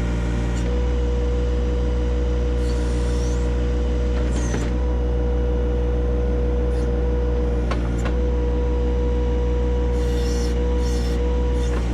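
John Deere 1025R compact tractor's three-cylinder diesel running steadily while working the loader and backhoe, with a steady whine over the engine note. A few sharp knocks come about halfway through, around two-thirds of the way in, and near the end.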